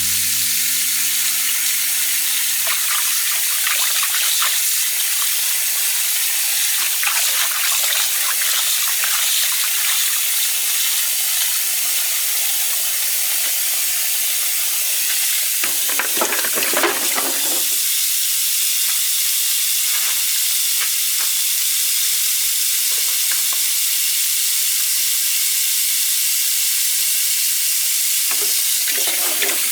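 Food frying in a hot pan: a steady sizzle with scattered crackles, louder and fuller for a couple of seconds about halfway through.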